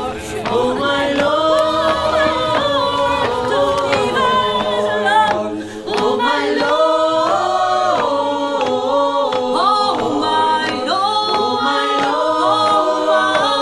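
A cappella music: several voices singing together in harmony with no instruments, dipping briefly about six seconds in.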